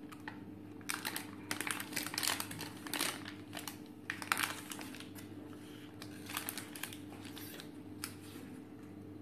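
Butter paper crinkling and rustling in several short spells as hands pull it back and smooth it flat around a block of set chocolate fudge.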